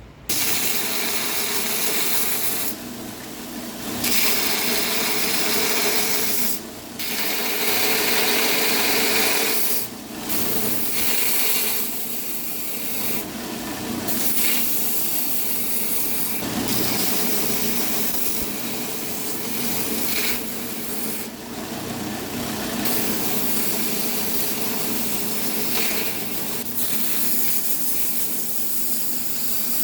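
Power sander grinding a glued-up knife handle into shape, running steadily with a few brief drops in the sound as the piece is lifted off and pressed back on.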